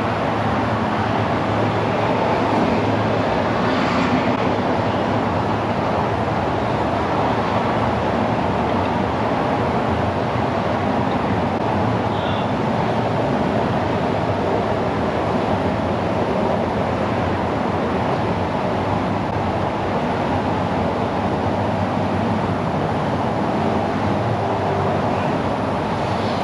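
Steady roar of passing highway traffic and repair-shop background noise, even in level throughout, with no single event standing out.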